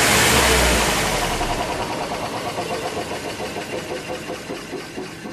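Car wheel spinning down after the engine is switched off, its worn wheel bearing humming and fading steadily as the wheel slows.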